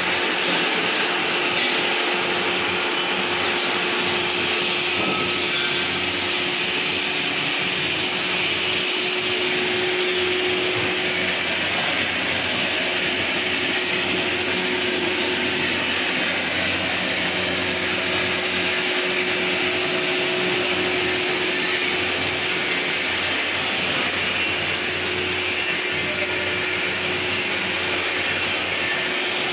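Floating fish feed extruder, a screw extruder driven by an electric motor, running steadily as it is fed, giving an even, unbroken machine noise with a faint tone that fades in and out.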